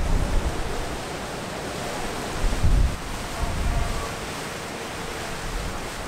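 Strong typhoon wind rushing and buffeting the microphone, with heavy rumbling gusts at the start and again about two and a half seconds in, easing to a steadier rush.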